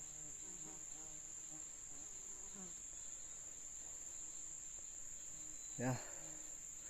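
Crickets chirring in a steady, high-pitched drone. A brief vocal sound cuts in about six seconds in.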